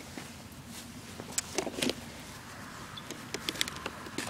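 Scattered light clicks and taps of a small screwdriver and hands working on an RC truck's plastic parts: a couple about a second and a half in, then a quick run of them near the end.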